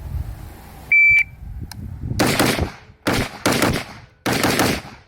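Shot timer start beep, one short high steady tone about a second in, followed by a rapid string of gunshots in a timed drill, each shot with a long ringing tail.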